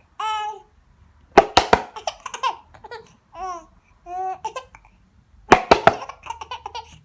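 A 7-month-old baby hiccuping, with two loud, sharp bursts about a second and a half in and again near the end, among her high-pitched squeals and babbling.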